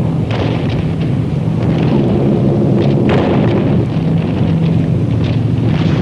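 Steady drone of a B-17 bomber's engines, with flak shells bursting around it in three bangs: just after the start, about three seconds in, and near the end.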